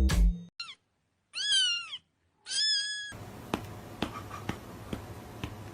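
Cat meowing twice, short high calls: the first rises and falls in pitch, the second is held level. After them comes a faint steady hiss with light ticks about twice a second.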